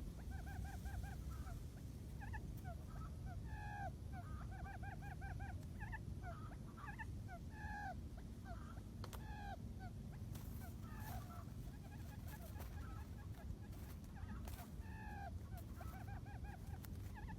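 Birds calling faintly: quick runs of short, honking notes and single down-sliding notes, repeated every second or two over a steady low rumble.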